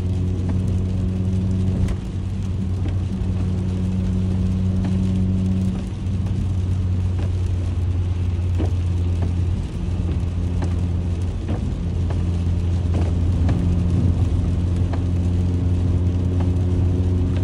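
Honda Accord driving on a wet highway, heard from inside the cabin: a steady low drone of engine and tyres with a faint hiss of road spray.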